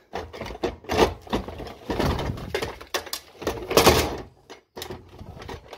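Rummaging through a cluttered aluminium checker-plate toolbox: its contents clattering and knocking irregularly, with louder clunks about a second in and again near four seconds.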